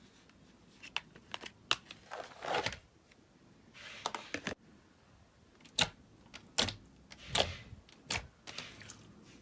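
Slime being pressed and pulled by hand: a run of sharp sticky pops and clicks, with a few short squishing swells between them.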